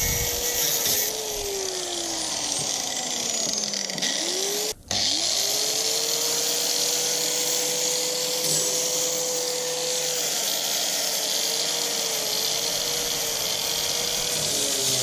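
Angle grinder running, its motor whine sinking in pitch and dying away over the first four seconds. It cuts off abruptly, then spins back up and runs steadily. Near the end the pitch wavers as the cutting disc bites into a thin steel sheet.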